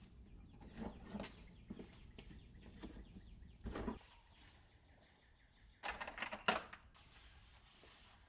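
Luggage being loaded into the rear cargo area of an SUV: a scattering of bumps, rustles and scrapes from an aluminium suitcase and a soft bag being handled. The loudest is a sharp knock about six and a half seconds in.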